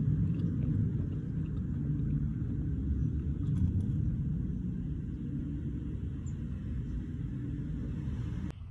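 A steady low rumble with no clear tone, which cuts off suddenly near the end.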